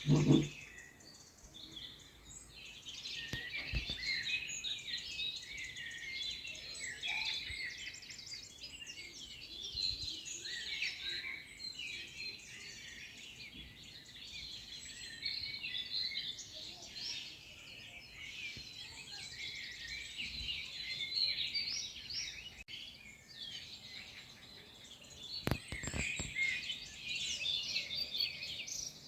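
Many small birds chirping and singing together in a dense, continuous chorus. A loud short thump comes right at the start, and a couple of sharp knocks come near the end.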